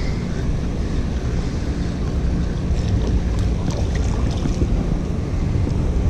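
Steady low rumble of wind buffeting the microphone and water moving around a small boat, with a few faint splashes from a hooked catfish at the surface in the second half.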